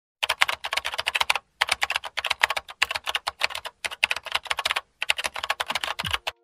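Computer keyboard typing: rapid key clicks in about three runs separated by brief pauses.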